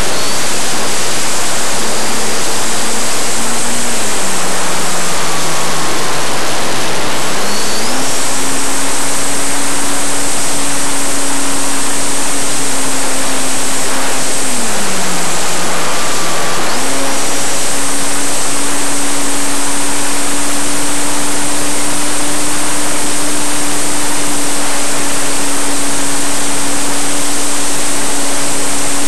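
Onboard sound of a Parkzone P-51 RC foam plane in flight: the electric motor and propeller whine over heavy wind rush. The propeller tone drops twice as the throttle is eased, about 4 and 15 seconds in, and climbs back to full power a few seconds later each time.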